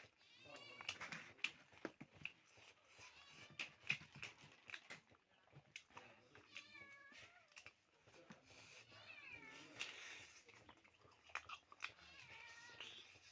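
A cat meowing again and again, several drawn-out calls that rise and fall in pitch, with small clicks in between.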